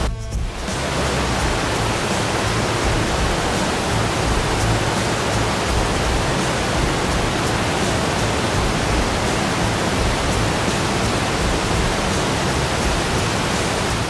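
Steady rushing of a waterfall and its river, an even roar of falling water with a brief drop just after the start.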